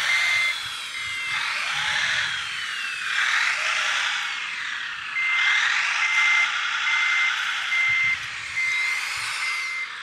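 Backup alarm of a radio-controlled Wedico Caterpillar wheel loader model, a high steady beep sounding on and off about one and a half times a second as the loader reverses, heard briefly at the start and again from about halfway through. Between the beeps the model's drive gives a whine that rises and falls in pitch.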